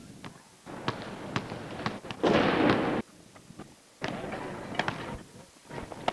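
Gym noise during basketball practice: sharp knocks and thuds inside patches of noise that start and stop abruptly. The loudest patch comes about two seconds in and lasts under a second.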